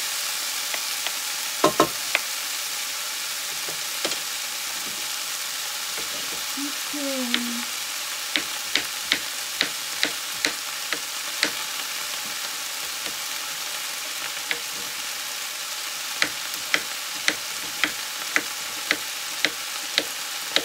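Vegetables sizzling steadily in a frying pan, with a few knocks of the wooden spatula against the pan near the start. Later a knife cuts yellow courgette on a wooden cutting board, about two cuts a second, in two runs.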